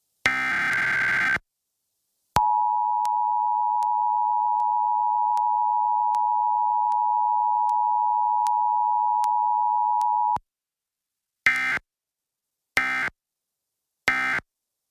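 Emergency Alert System required monthly test tones. First the last SAME header data burst, a digital buzz about a second long. Then the two-tone EAS attention signal held steady for about eight seconds, and near the end three short end-of-message data bursts.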